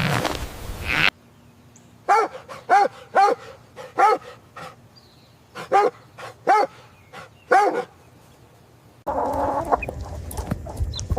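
An animal giving about seven short calls, each rising and falling in pitch, spread over about six seconds. Louder, noisier farm footage sits at the start and from about nine seconds in.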